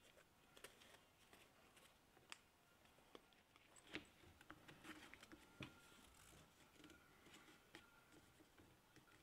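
Near silence with faint, scattered clicks and rustles of a leather axe sheath being handled and fitted over the axe head.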